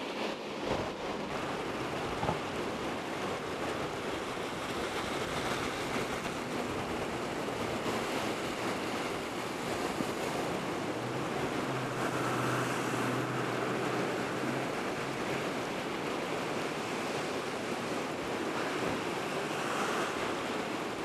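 Fast-flowing floodwater rushing steadily over flooded ground and roadway. A faint low hum sounds for a few seconds midway.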